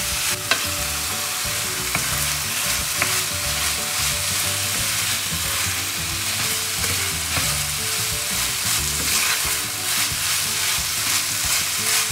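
Chicken pieces and quinoa sizzling in hot oil in a nonstick pan as they are sautéed and stirred with a wooden spatula, with a few sharp taps of the spatula against the pan in the first few seconds.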